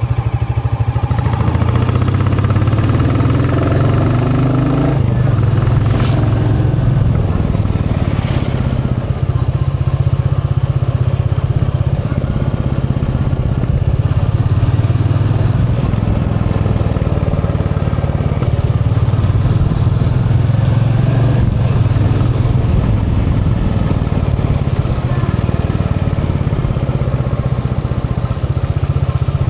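Royal Enfield Bullet 350's single-cylinder engine running steadily while riding, its note climbing in the first few seconds. Two sharp knocks about six and eight seconds in.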